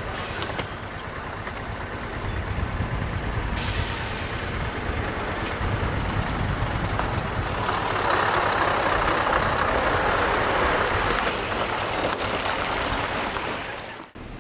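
Heavy lorry running, with a steady hiss lasting about three seconds midway.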